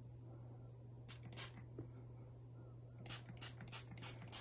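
Pump spray bottle misting a hair treatment onto damp hair: two quick sprays about a second in, then a fast run of about six near the end. A steady low hum runs underneath.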